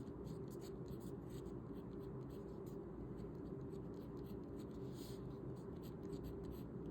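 A pen scratching on paper in many short, faint strokes, writing Chinese characters by hand.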